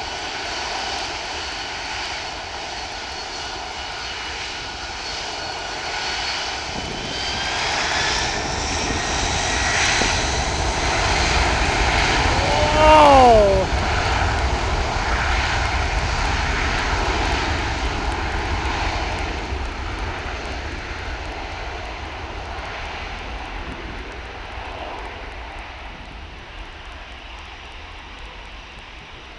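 Boeing 747 freighter's four jet engines spooling up to takeoff thrust, the engine whine rising in pitch over the rumble as the aircraft starts its takeoff roll. About halfway through, at its loudest, the whine sweeps quickly down in pitch as the jet rolls past. The sound then fades steadily as it heads away down the runway.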